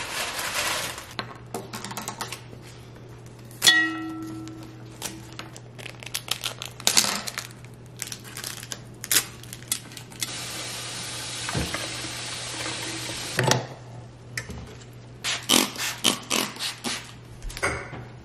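Kitchen handling sounds while arranging flowers in a glass vase. A sharp clink with a short ringing tone comes about four seconds in, tap water runs for about three seconds in the middle, and a run of small clicks and knocks on the stone countertop comes near the end.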